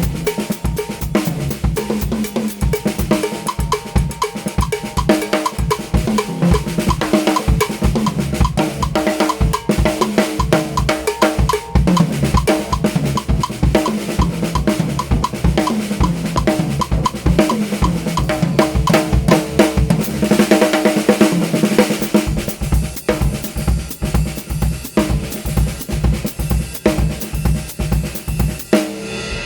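Drum kit played in a continuous groove: snare strokes and rimshots on a solid-shell snare carved from a single piece of Thai wood, with bass drum and cymbals, stopping briefly near the end.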